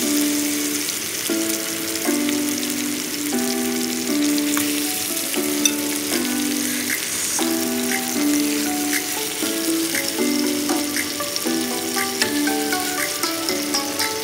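Food frying in a pan: a steady sizzle with a few short ticks. A simple melody of held notes plays over it.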